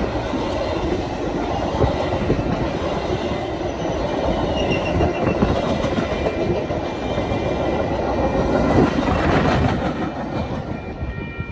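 Metra bilevel commuter cars rolling past at close range, their steel wheels rumbling on the rails, easing off slightly near the end as the last car goes by.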